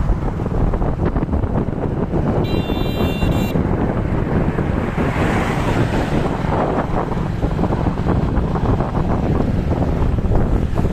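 Wind buffeting the microphone in a steady, loud rumble. A brief high-pitched tone sounds about two and a half seconds in and lasts about a second.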